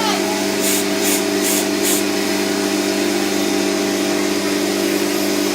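Four short hisses of a WD-40 aerosol can being sprayed, about a second in, over a steady whirring mechanical hum.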